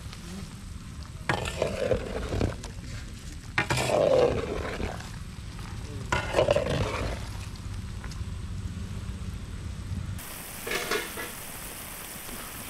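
Rasagulla cooking in boiling sugar syrup in a pot, stirred with a ladle in short scraping strokes every two to three seconds.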